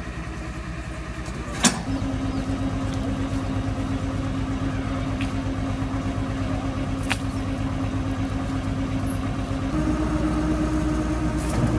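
Truck-mounted borewell drilling rig's engine running steadily with a rapid low pulsing. A sharp clank comes near two seconds in, a steady hum starts just after it, and the hum steps up in pitch and gets louder near the end.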